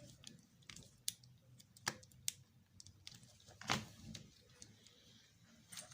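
Scattered clicks and knocks of small parts and tools being handled during hand work on an electric motor. The loudest knock comes a little before four seconds in.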